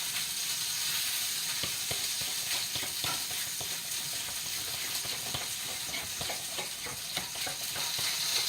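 Breakfast food sizzling steadily in a hot frying pan, with faint scattered clicks and taps of utensils throughout.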